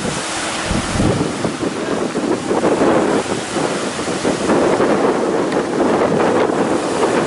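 Strong wind gusting across the microphone, over the wash of choppy, whitecapped water.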